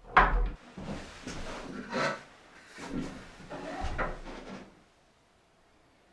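Wooden kitchen cabinet being shifted and set into place on a wooden plank floor: a run of wooden knocks and scrapes, the loudest right at the start, dying away after about four and a half seconds.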